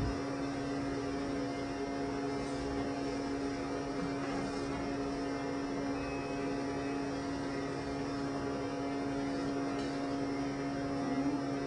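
Steady electrical hum, one constant low tone over a faint even hiss, with only a few soft, faint rustles.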